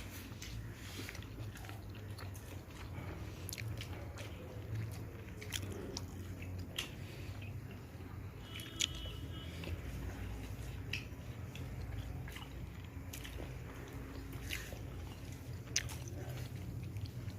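Close-up chewing and mouth noises of someone eating pork: many small wet clicks and smacks scattered irregularly, over a steady low hum.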